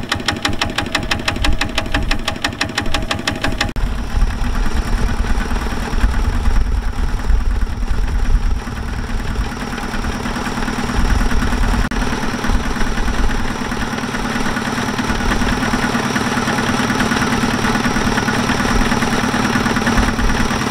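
Kubota walking tractor's single-cylinder diesel engine running with a fast, even knocking beat. About four seconds in the sound changes abruptly to a steadier engine drone that continues to the end.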